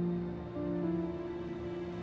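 Background music: slow held notes, plucked-guitar style, changing pitch around the middle.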